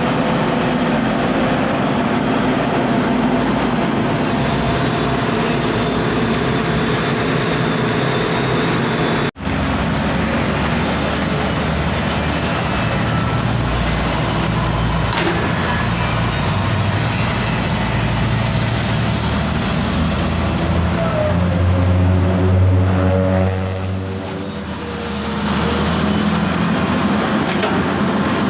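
Komatsu PC200 hydraulic excavator's diesel engine running steadily as the machine works, growing louder and deeper for a couple of seconds about two-thirds of the way through, then easing off. The sound cuts out for an instant about nine seconds in.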